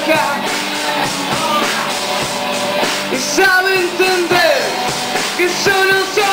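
Live rock band playing, with a singer holding long sung notes that slide up and down over the instruments.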